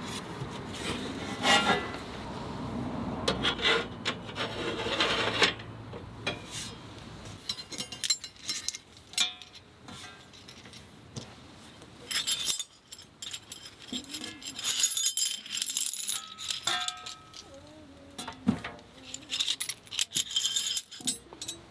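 Irregular rubbing and scraping with scattered clicks and knocks as things are handled, busier in the first few seconds and again in the second half.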